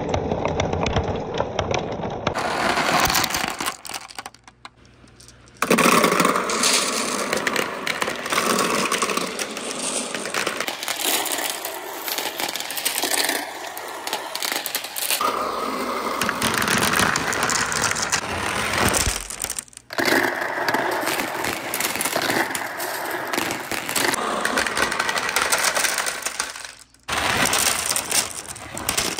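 Many glass marbles rolling down a perforated slope and knocking into one another, a dense, continuous clatter of clicks. It cuts out briefly a few times.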